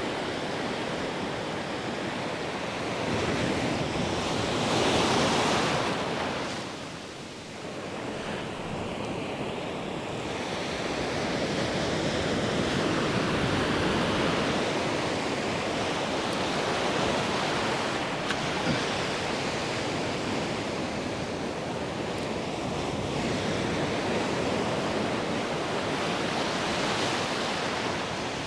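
Ocean surf washing onto a beach, a steady rushing of breaking waves, with one louder wave building and breaking about four to six seconds in.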